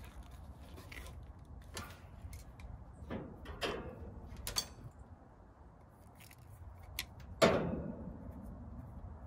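Wire cutters snipping the fan motor's wire leads short: a series of sharp clicks and snips, the loudest near the end with a brief ring.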